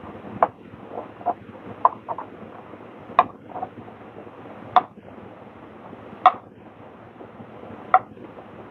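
A run of sharp clinks of tableware, each ringing briefly, about ten in all, the loudest four roughly a second and a half apart in the second half, over a steady background hiss.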